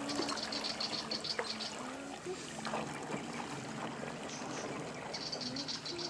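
Water lapping and trickling at the bank as small wake waves wash in. A rapid, high-pitched pulsing trill sounds near the start and again near the end.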